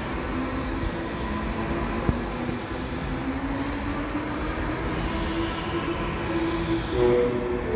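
Go-karts running laps on an indoor track, their motors making a steady drone that rises and falls in pitch as they speed up and slow down, in a reverberant hall. A single sharp knock about two seconds in, and the drone gets louder near the end.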